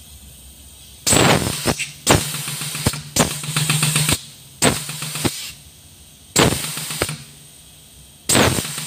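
Air-powered grease gun fired in six short bursts, each a hiss with rapid pumping, forcing grease through a cone-type bearing packer into a tapered roller bearing to pack it full. The last burst runs on past the end.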